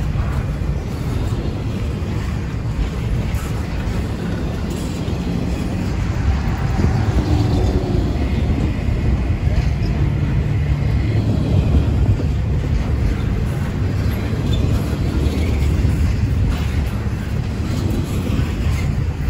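Freight train rolling past, a steady low rumble of wheels and cars that swells slightly in the middle.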